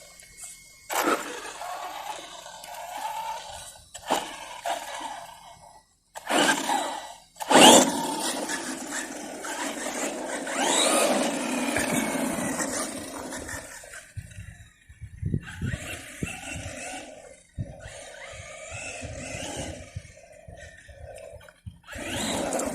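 Brushless motor of a Maverick Strada XT Evo RC car whining in repeated bursts as it speeds up and slows, its pitch rising and falling, with tyre and ground noise alongside. Several short loud bursts come in the first half, and a longer run follows.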